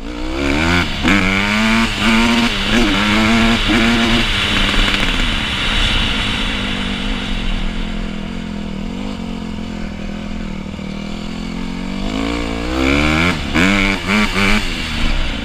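Honda CRF150R's four-stroke single-cylinder engine revving hard, its pitch climbing again and again as the dirt bike accelerates up through the gears. It then settles lower and falls away while the bike rolls along, and near the end it revs up in several short rises.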